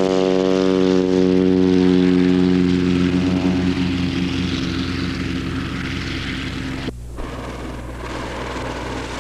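Light single-engine Cessna's propeller engine at takeoff power, a loud steady buzzing drone that grows fainter and duller as the plane rolls away down the runway. About seven seconds in the sound cuts off suddenly to a quieter hiss with a low engine hum.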